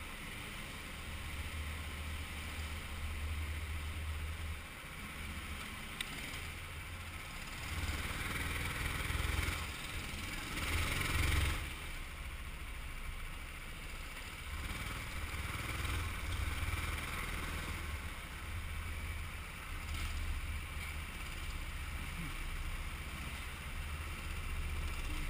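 Rental go-kart engine heard from a camera mounted on the kart: a steady low rumble that swells about ten to twelve seconds in. The kart then slows and rolls into the pit lane.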